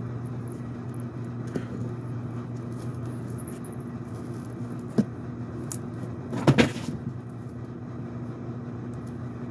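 Cardboard shipping box being handled and opened by hand over a steady low hum: a single sharp knock about five seconds in, then a short, loud crackle of the box's packing about a second and a half later.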